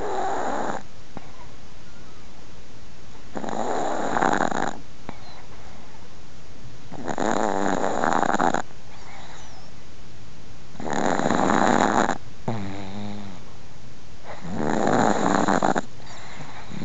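An elderly Chihuahua snoring in its sleep: five snores, one about every three and a half to four seconds, with a short pitched sound right after the fourth.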